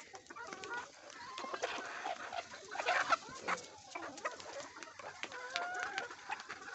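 A flock of hens clucking and calling over food, with rapid sharp taps of beaks pecking at soaked roti.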